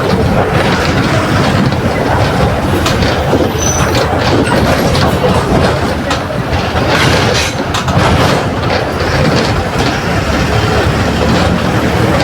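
Mercedes-Benz OF 1721 BlueTec 5 bus's front-mounted four-cylinder diesel running steadily under way, heard with road rumble and rattling from the bus body.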